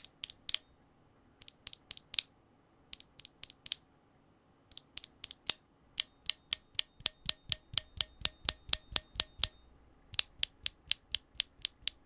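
Stock, unlubed Ethereal Panda tactile mechanical keyboard switches, loose and held in the fingers, being pressed and released: sharp plastic clacks. They come scattered in pairs at first, then in a fast even run of about four to five a second from about halfway.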